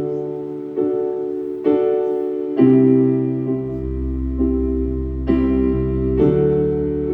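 Live instrumental music: a piano-toned keyboard playing slow sustained chords, a new chord struck roughly every second, with a deep bass note joining about halfway through.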